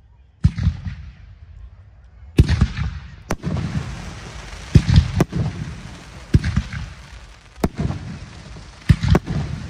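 Aerial firework shells bursting one after another: about nine sharp bangs, roughly one a second, each trailing off in a low rolling rumble.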